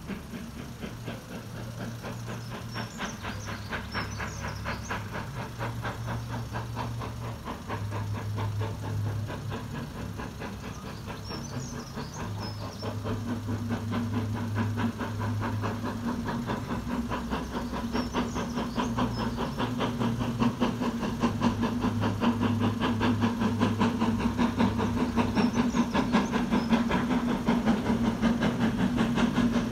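Steam locomotive approaching under power, its rapid exhaust beats growing steadily louder as it nears, over a low uneven rumble.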